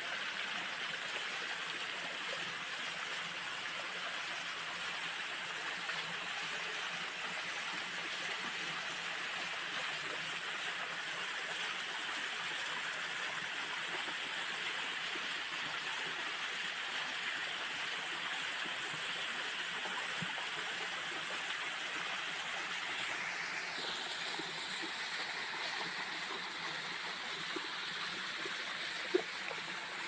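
Waterfall pouring over rocks: a steady, even rush of water, with a single sharp knock near the end.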